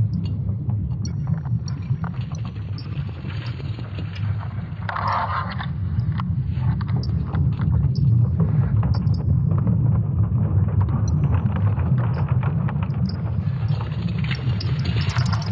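Sonification of Earth's magnetic field: a steady deep rumble with scattered crackles and creaks over it, and a louder creaking burst about five seconds in and again near the end.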